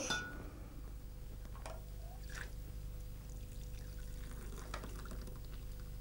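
Hot milk poured from a saucepan through a wire-mesh sieve into a bowl: faint pouring and trickling of liquid, with a few light taps.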